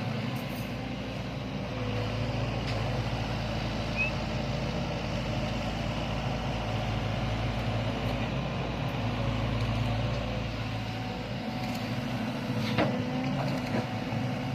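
Sany hydraulic excavator's diesel engine running steadily under load, with a sharp knock about thirteen seconds in.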